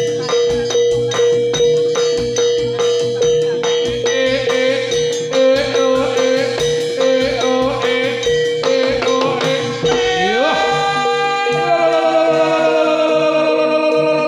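Javanese jathilan accompaniment music: a steady drum beat of about three strokes a second under a held tone and metallophone notes. About ten seconds in the drumming stops and a long sung note rises in and is held with a wavering pitch.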